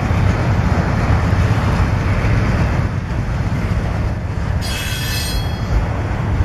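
Freight train of autorack cars rolling by with a steady low rumble. About four and a half seconds in, a steel wheel squeals high-pitched for about a second.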